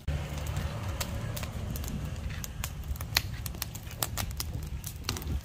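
Pile of dry grass and weeds burning, crackling with many sharp pops over a low steady rumble.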